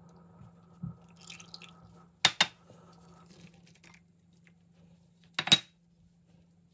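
Small ceramic prep dishes clinking against glass as oil and minced garlic are tipped into a glass mixing bowl: two sharp double clinks, one about two seconds in and one about five and a half seconds in. A faint steady low hum runs underneath.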